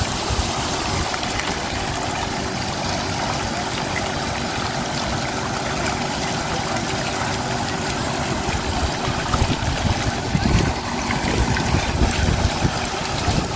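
A motor runs with a steady hum while water trickles and splashes at a shrimp-pond harvest.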